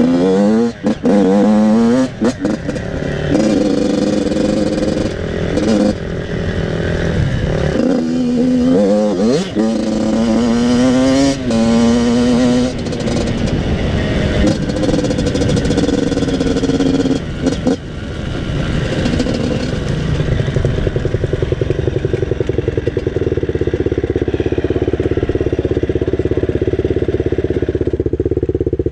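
Yamaha YZ85 two-stroke dirt bike engine revving hard across open ground, its pitch climbing and dropping again and again through the gears, then settling into a steady, evenly pulsing idle for the last several seconds once the bike has stopped.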